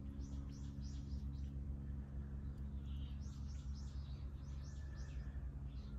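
A small bird chirping in two quick runs of short, high, falling notes, about three a second, the second run starting near the halfway point. A steady low hum runs underneath.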